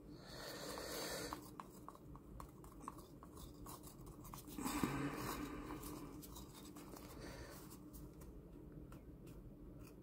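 Wooden craft stick scraping leftover epoxy resin out of a plastic mixing cup, in two longer scraping passes near the start and around the middle, with light clicks and taps of the stick against the cup between them.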